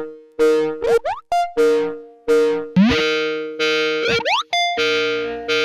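A synthesized ringtone melody: about ten short notes, mostly on one repeated pitch, each fading quickly, with quick upward-swooping notes in between.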